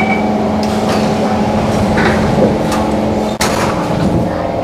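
Singapore MRT train's sliding passenger doors closing, shutting with a sharp knock about three and a half seconds in, over the steady hum of the train standing in the station. A steady high tone stops just after the start.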